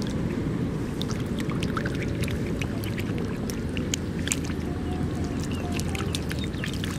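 Dozens of catfish thrashing in shallow muddy water, with many small wet splashes and pops over a steady low rumble.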